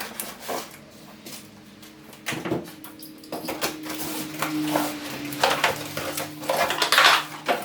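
Irregular clicks, knocks and clatter of tools, a battery and hard cases being handled and moved about, over a faint steady hum.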